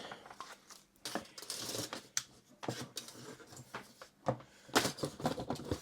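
Things being handled and set down on a work surface: rustling, with several sharp knocks and clicks, the loudest a little after four seconds in and near the end.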